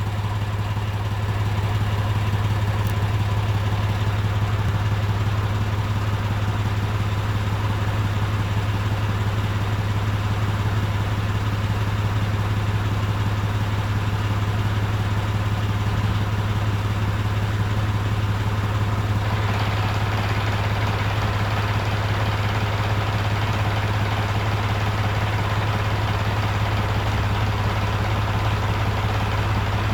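John Deere 1950 tractor engine idling steadily. About two-thirds of the way in, a harsher, noisier sound joins the idle and carries on.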